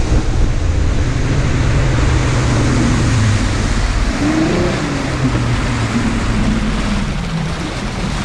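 Bass boat's outboard motor running underway, with wind and water rushing past the hull. The engine note rises and falls briefly about four seconds in.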